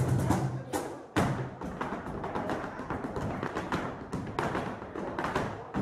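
Flamenco zapateado: two dancers' shoes striking the floor in fast rhythmic taps and stamps, over the soleá's music. A low held note stops about a second in.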